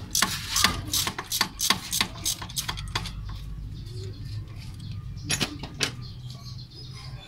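Hand tools clicking and clinking against metal in an engine bay while the fuel pump of a Toyota 5K engine is being unbolted: a quick, irregular run of sharp clicks over the first three seconds, then two more about five and a half seconds in.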